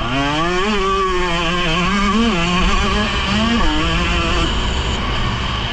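Motocross bike engine under hard throttle. It revs up steeply at the start, then holds high with a few brief dips and swells in pitch as the throttle is rolled off and back on.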